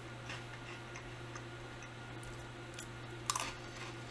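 Faint crunching and chewing of crunchy vegetable snack sticks, with a louder crunch about three seconds in.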